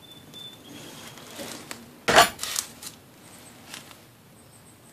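Pieces of scrap brass being handled and clinking, with one louder metal clank that rings briefly about two seconds in, and a few lighter clicks around it.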